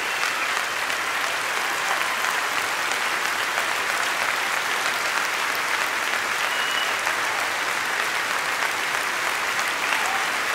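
Large church congregation applauding steadily.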